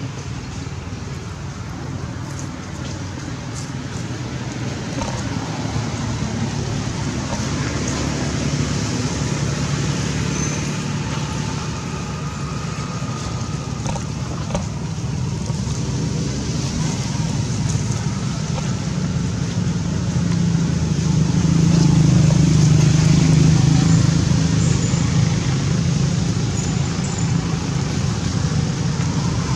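Steady low rumble of road traffic, swelling louder about twenty seconds in and easing off again.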